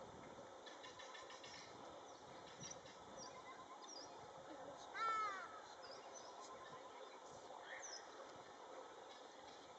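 Faint outdoor ambience of small birds chirping, with one louder animal call about halfway through, a short call that rises and then falls in pitch over about half a second.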